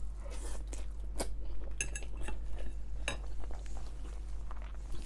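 Metal cutlery clinking against a plate in a few sharp, separate strikes, one of them about two seconds in ringing briefly.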